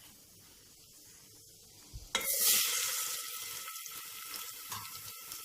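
Crushed green chilli and onion paste going into hot oil in a handi: a faint hiss, then about two seconds in a sudden loud sizzle that settles into steady frying with small crackles.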